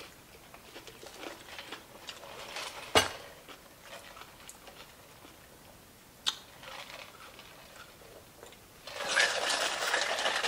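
Drinks being sipped through straws from plastic cups: small clicks and knocks of cup and straw, with one sharp knock about three seconds in. Near the end comes a loud, rapid rattling slurp through a straw.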